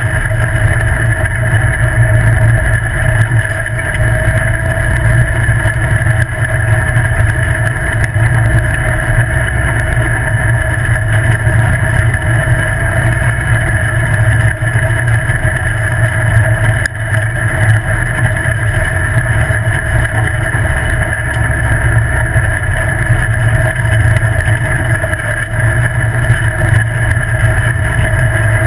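Open-wheeled car's engine and tyres running steadily on a dirt road: an even drone that neither rises nor falls.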